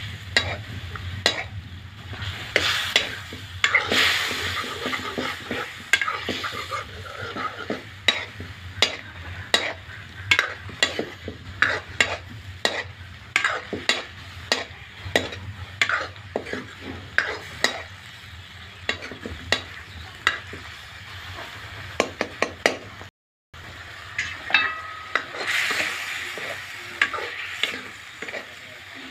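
Metal ladle stirring ripe mango curry in an iron kadai, with frequent clicks and scrapes of the ladle against the pan over the sizzle of the simmering gravy. A brief gap of silence comes about 23 seconds in.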